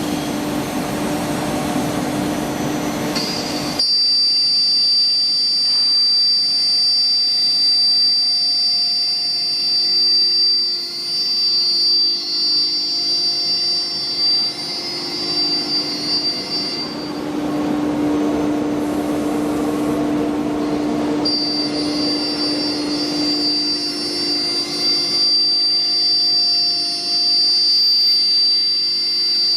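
BMG 1325 CNC router running, a steady high whine over machine noise. The sound shifts suddenly a few seconds in, and the high whine drops out for a few seconds about two-thirds of the way through, then returns.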